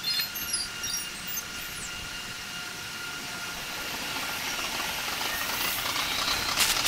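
JR 700 series Shinkansen pulling out of the station, sped up six times: a rushing hiss that grows steadily louder as the train picks up speed past the platform, with a rapid clatter coming in near the end.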